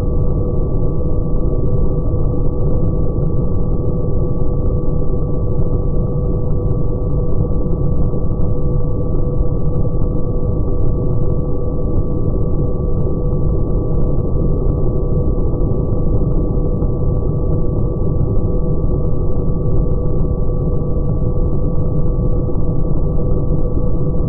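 Electric RC airplane's motor, propeller and wind noise as picked up by its onboard camera, played back slowed down about tenfold. It becomes a deep, unbroken rumble with two low steady hums and no high sound at all.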